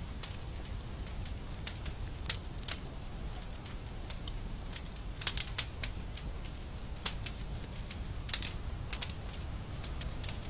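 Wood fire crackling in a fireplace: irregular sharp pops and snaps over a steady low rumble of burning, with a few louder pops about halfway through and again later.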